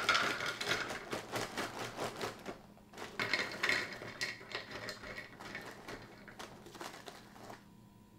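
Frosted Mini-Wheats Maple Brown Sugar biscuits pouring from the box's plastic liner into a bowl, a rattling patter of pieces landing. It comes in surges at the start and again about three seconds in, then thins to a trickle near the end.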